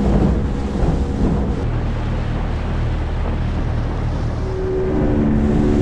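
Outboard motor driving a small fishing boat under way, with wind buffeting the microphone and water rushing past the hull. The motor's steady hum shifts to a higher note about four and a half seconds in.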